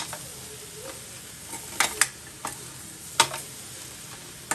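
Sirukeerai (amaranth greens) and dal being stirred in a kadai as the salt is mixed in: a utensil scrapes and knocks against the pan about six times over a steady sizzle of the cooking greens.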